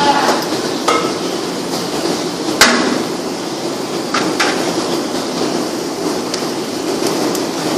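A metal ladle knocking against a large aluminium cooking pot a few times, the sharpest clank about two and a half seconds in, over steady sizzling from garlic and onion frying in the pot.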